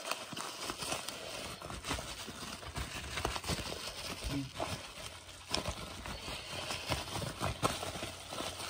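Irregular clicks, taps and light crackling of handling noise close to the phone's microphone, as hands work at the unboxing.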